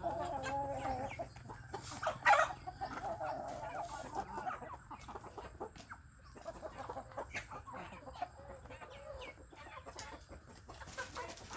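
Chickens clucking, a run of short calls, with one louder call about two seconds in.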